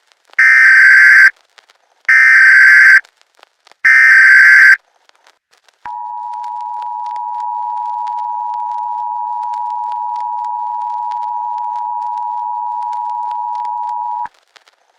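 Emergency Alert System alert tones: three one-second bursts of SAME digital header data, then the steady two-tone EAS attention signal held for about eight seconds before it cuts off.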